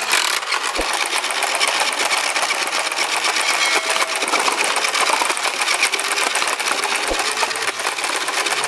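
Blaze Storm battery-powered foam-ball blaster firing on full auto: a fast, steady mechanical rattle from its motor.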